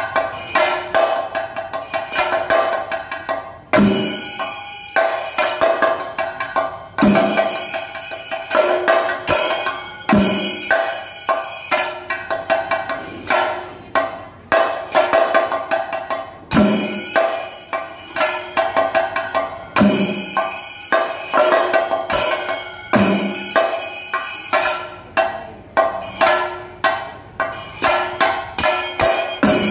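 Thayambaka on chenda drums: several Kerala cylindrical drums struck with sticks in fast, dense rolls, with loud accented strokes about every three seconds.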